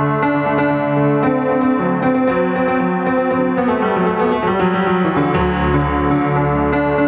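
Piano playing held chords under a moving melody, with a deep bass note coming in about five seconds in.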